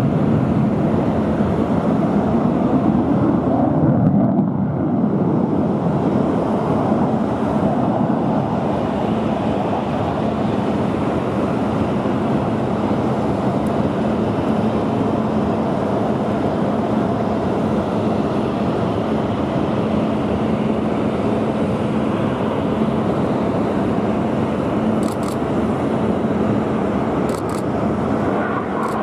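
Single-engine HAL Tejas fighter's GE F404 turbofan during an aerobatic display: a steady rush of jet noise, a little louder in the first few seconds, with a faint steady hum underneath.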